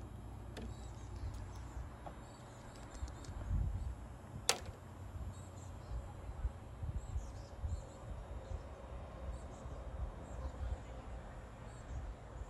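Outdoor ambience: an uneven low rumble, faint high chirps here and there, and one sharp click about four and a half seconds in.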